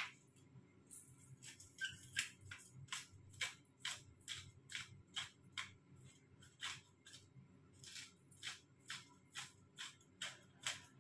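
Glass spice grinder being twisted over a pot, a short gritty crunch with each turn, about two to three a second.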